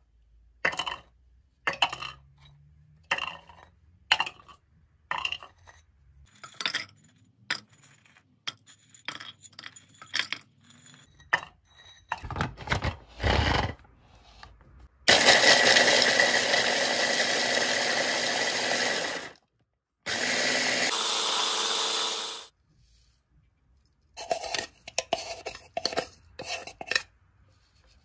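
Nuts dropping one at a time into the plastic bowl of a Delta hand-blender chopper, each a sharp click, then the chopper's motor running twice, about four seconds and then about two, grinding the nuts; a metal spoon scrapes and clinks in the bowls near the end.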